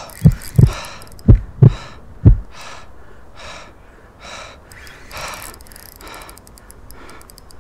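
A person breathing hard and fast under exertion: a few heavy puffs of breath on the microphone in the first couple of seconds, then quick panting breaths about once a second.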